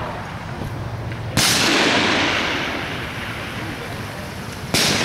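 Two high-power rifle shots on a firing line, about three and a half seconds apart, each a sharp crack followed by a long fading echo across the range.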